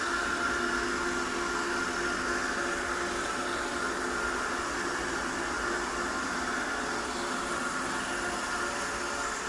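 Robot vacuum cleaner running: a steady whir of its suction motor with a faint hum.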